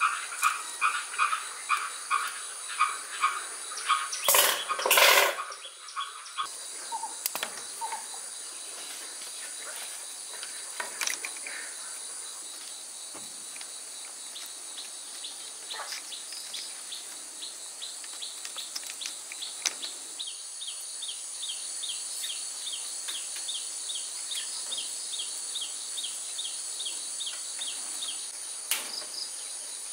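Crickets and other insects chirping steadily in the background, with a bird calling in quick repeated notes at the start and two loud knocks about four to five seconds in. From about twenty seconds in, a fast run of short, high chirps joins the steady chorus.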